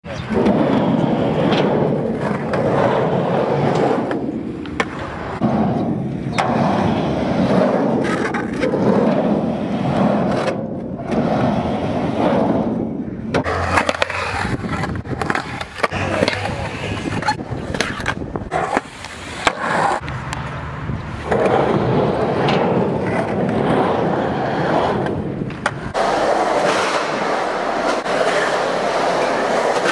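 Skateboard wheels rolling and carving on concrete in surges that rise and fade, with a sharp clack of the board striking the concrete several times.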